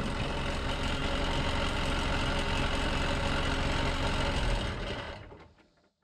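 1998 Ford New Holland 555E backhoe's diesel engine idling steadily, fading out near the end.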